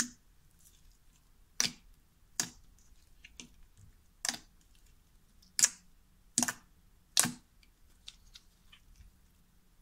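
Pink foam-bead slime being worked by hand, giving about seven sharp, crisp pops and crackles at uneven intervals.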